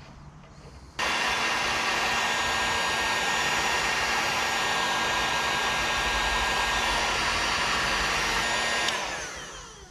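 Electric heat gun switched on about a second in, running with a steady fan whir and hiss while shrinking heat-shrink tubing over a crimped butt connector. It is switched off near the end and the fan winds down with a falling pitch.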